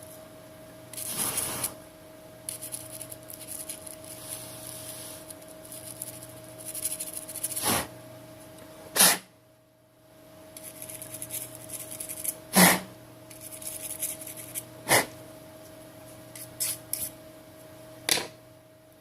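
Small hand tools and phone parts being handled: a series of sharp clicks and taps, about six spread out, with scraping between them, over a steady faint hum.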